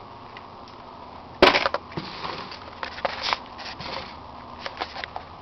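Handling noises: a loud knock about a second and a half in, followed by a short clatter and scattered clicks and rustles.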